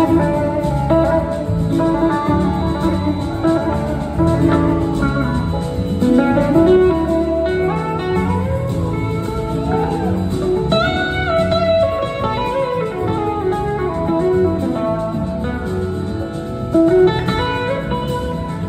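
Live blues-rock band playing an instrumental passage: an electric slide guitar lead, its notes gliding up and down in pitch, over drums, bass and keyboards.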